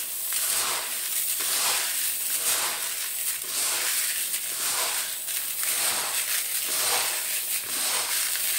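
Hands stirring and turning a bowlful of dry mixed grains, pulses and seeds in a plastic bowl: a continuous rattling rustle of the grains that swells with each stroke, about three strokes every two seconds.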